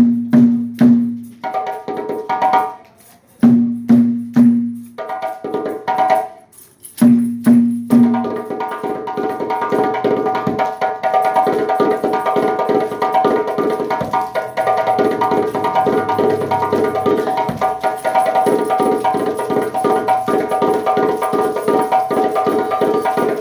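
Live hand percussion. A drum is struck in three phrases of three pitched strokes, then from about eight seconds in a steady, fast rhythm of many percussion strokes carries on together.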